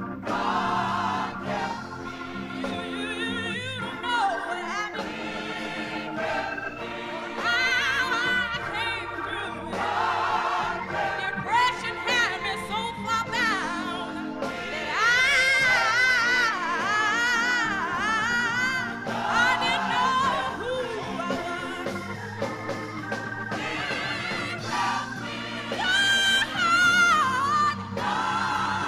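Gospel choir singing, with a woman soloist leading into a handheld microphone over the choir.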